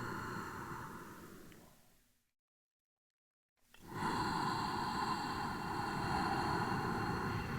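A steady ambient background soundscape fades out to complete silence about two seconds in, then fades back in about a second and a half later and runs on steadily.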